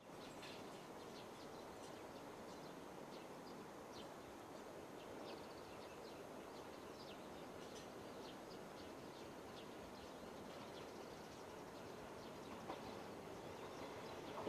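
Quiet rural outdoor ambience: a steady hiss with frequent short bird chirps. Near the end an approaching electric train starts to become audible, growing louder.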